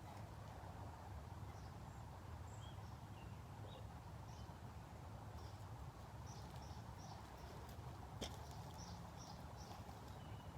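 Faint outdoor ambience: scattered short bird chirps, with a run of evenly repeated chirps in the second half, over a steady low rumble. A single sharp click about eight seconds in.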